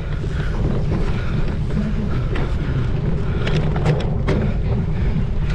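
Steady low wind rumble on the microphone of a cyclocross bike being ridden over rough ground, with several sharp clicks from the bike a little over halfway through.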